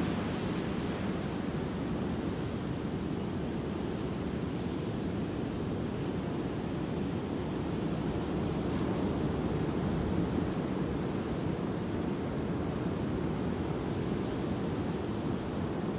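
Ocean surf breaking and washing up a sand beach: a steady rush of white water that swells a little about ten seconds in.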